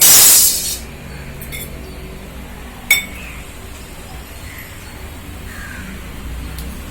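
Fennel seeds tipped into hot sesame oil in a pan: a short loud burst of sizzling, then a single metal clink about three seconds in.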